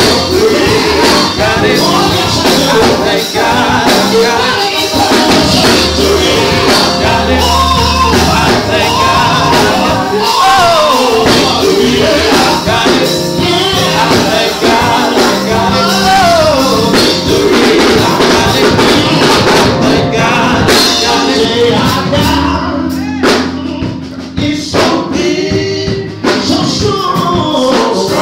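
Gospel singing with a band: voices over bass notes and a steady beat. About three-quarters of the way through the bass and beat thin out for a few seconds, leaving mostly the voices, then return.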